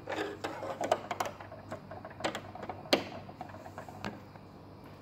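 Small plastic clicks and light clatter from handling a sewing machine's drop-in bobbin and snapping its clear plastic bobbin cover shut, with a few sharper clicks about one, two and a quarter, and three seconds in.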